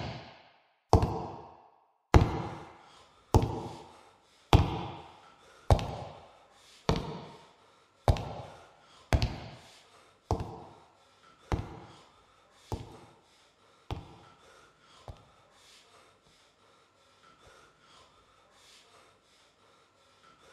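Slow, heavy knocks on a wooden door, about one every 1.2 seconds, each with an echoing tail, growing fainter over some fourteen strokes until they die away in the last few seconds.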